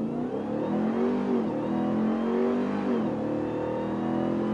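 2021 Ram TRX's supercharged 6.2-litre Hellcat V8 at full throttle on an acceleration run, heard from inside the cabin. The engine note climbs steadily with the revs and drops briefly twice, about one and a half and three seconds in, as the eight-speed automatic shifts up.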